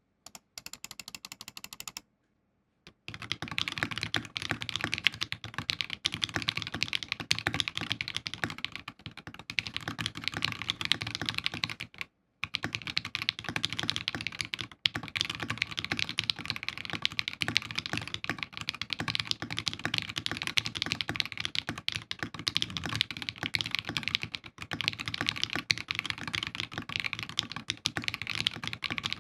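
Fusion60 mechanical keyboard with Krytox-lubed, filmed FFFF switches and foam under its DZ60 PCB, typed on fast in a continuous stream of keystrokes. The typing gets going about three seconds in and breaks off briefly about twelve seconds in.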